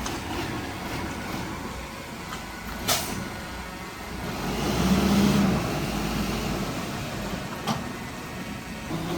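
Heavy construction machinery engine running, swelling louder for a second or so about halfway through. Two sharp clacks come a few seconds apart.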